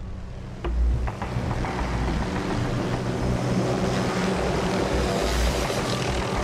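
Helicopter landing: rotor and engine running loudly with a low pulsing rumble and a rushing noise, coming in suddenly about a second in.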